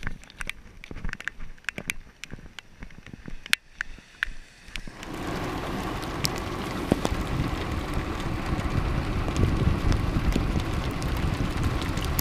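Hail pellets ticking sharply and irregularly on and around the camera. About five seconds in, a steady rumble of a car on a wet road takes over, growing slowly louder, with hail still tapping through it.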